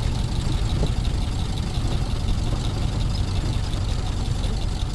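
1917 Ford Model T's four-cylinder flathead engine running as the car drives along, heard from inside the open car: a steady, low running sound with no letup.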